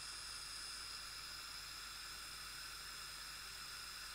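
Analog television static: a steady, even hiss of white noise that cuts off suddenly at the end.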